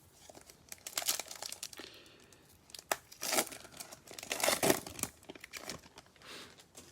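Foil trading-card pack wrapper being torn open and crinkled by hand, in bursts of sharp crackling and rustling that are loudest about one second, three and a half seconds and four and a half seconds in.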